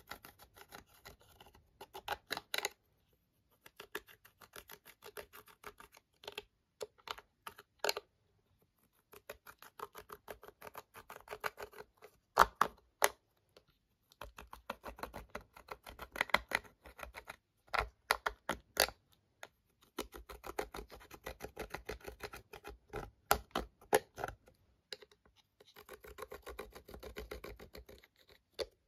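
A metal-tipped pick scratching and tapping at pressed eyeshadow powder in a plastic palette: rapid, crisp scraping clicks with a few short pauses.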